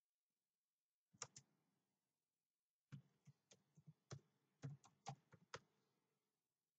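Faint typing on a computer keyboard: two quick clicks about a second in, then a run of about ten keystrokes spelling out a word.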